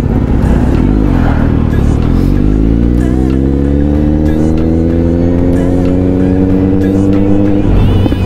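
Kawasaki Z900's inline-four engine accelerating, its pitch climbing steadily for about six seconds, then dropping abruptly near the end.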